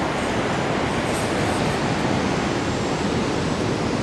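Heavy surf breaking on a shingle beach: a steady, dense rush of waves that holds at one level throughout.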